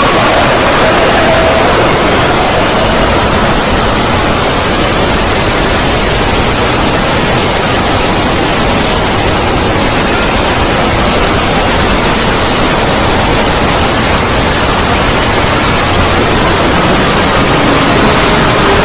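Loud, steady, harsh static-like noise filling all pitches: a heavily distorted 'void scream' sound effect.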